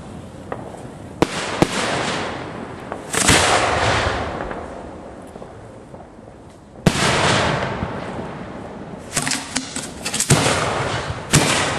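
Fireworks going off close by from ground racks at the firing site: a run of sharp booms, some followed by a long fading rush of noise, with a quick cluster of reports near the end.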